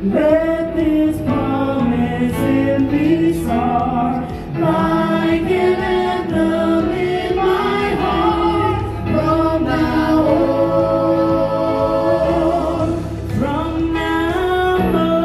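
Live stage song: several voices singing together in harmony over backing music.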